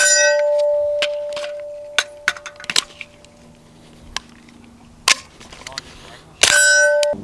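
A gunshot and a steel target clanging, the plate ringing on and fading over about three seconds. A few fainter knocks follow, then another loud shot and clang near the end.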